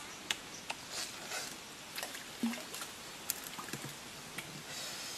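Scattered small sharp snaps and clicks from small fruits being plucked off a branch and eaten, over a soft steady background hiss.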